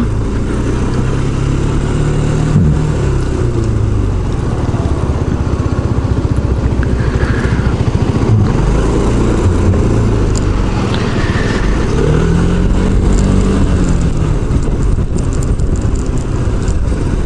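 Yamaha Majesty S scooter's single-cylinder engine running while being ridden, its pitch rising and falling several times with the throttle, over a steady rush of wind noise.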